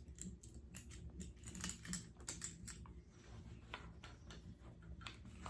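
Faint, irregular small clicks and clinks of a keyring with keys and a little bottle opener being handled, with a sharper click near the end.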